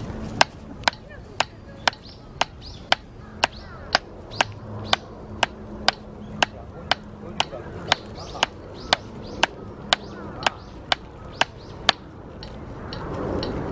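Drumsticks striking a drum practice pad in single, evenly spaced strokes, about two a second; the strokes stop about twelve seconds in.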